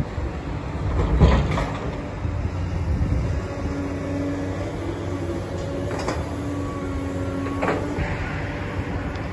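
Hydraulic excavator working demolition rubble: a steady diesel engine rumble with a held hydraulic whine, and debris crashing down three times, at about one second, six seconds and near the end.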